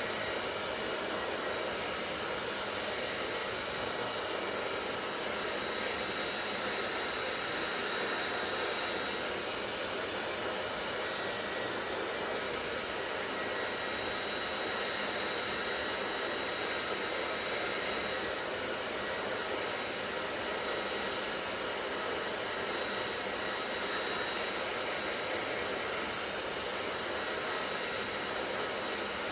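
Hair dryer running steadily, an even rushing blow of air with a faint high whine from the motor.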